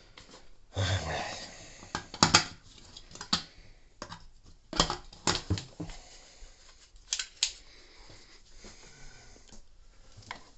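Handling noise: a string of sharp clicks and knocks with a brief rustle about a second in, as small objects are fumbled and tapped.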